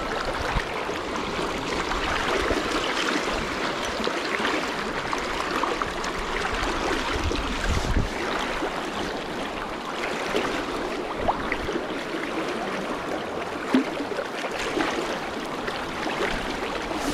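Fast river current rushing and rippling steadily around a wading angler.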